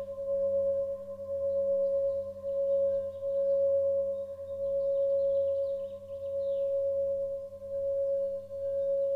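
A steady, ringing drone tone that swells and fades in slow waves about every second and a half, like a sustained singing-bowl tone. Faint high chirps sound above it.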